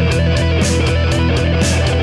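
Rock music with electric guitar over a steady, driving drum beat.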